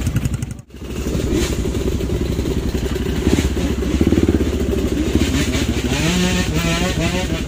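Dirt bike engines running at low revs as the bikes crawl along a rutted trail, with the revs rising and falling in the second half. The sound drops out briefly just under a second in.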